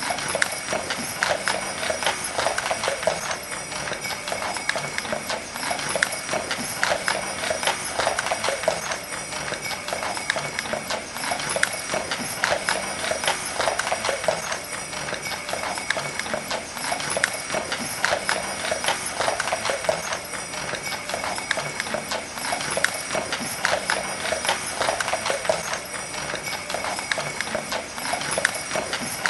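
Horse hoofbeats clip-clopping on hard ground, a continuous run of hoof strikes.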